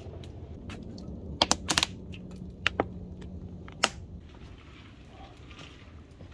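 Several sharp clicks and knocks of cookware being handled, a quick cluster about a second and a half in, a pair a little later and one last louder knock near four seconds, over a faint low hum.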